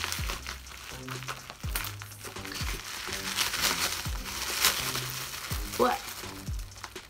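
Plastic bubble wrap crinkling and crackling as it is handled and cut open with scissors, over background music with a steady beat.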